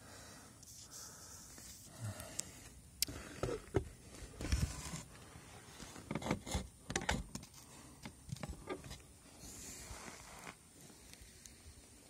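Scattered knocks, scrapes and rustles of movement and handling in a small room, busiest from about two to nine seconds in.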